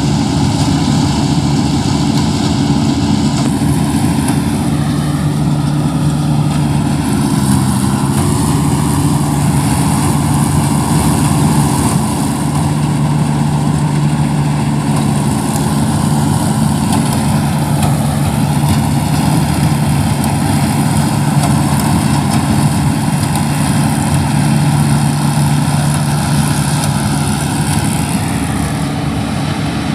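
Engine of a rice-harvesting machine running steadily, its pitch dipping briefly about eight seconds in.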